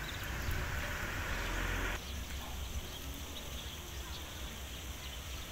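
Faint outdoor background noise with a low, uneven rumble, typical of wind on the microphone. The noise changes abruptly about two seconds in.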